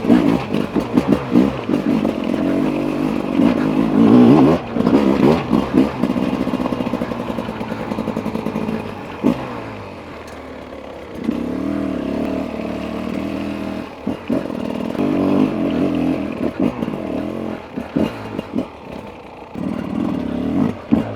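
Beta RR 300 single-cylinder two-stroke enduro engine being ridden on a trail, revving up and down with the throttle. It runs hard for the first few seconds, drops lower from about eight seconds in, then comes back in short bursts of throttle three times.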